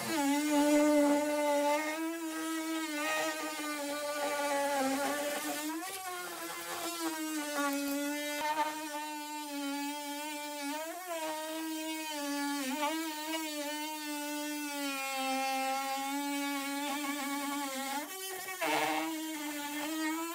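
DeWalt cordless oscillating multi-tool running steadily, its blade cutting along the edge of a fibreglass boat floor where it meets the hull side. The high whine holds one pitch and dips briefly several times as the blade loads up.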